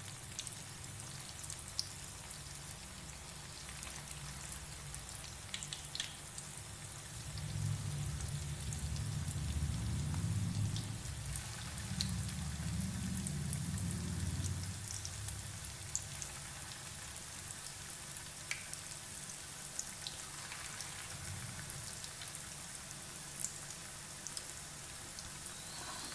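Bread-and-semolina dough fingers deep-frying in hot oil in a pan: a steady sizzle with scattered small pops and crackles, freshening as more pieces are dropped in. A low rumble swells for several seconds about a third of the way through.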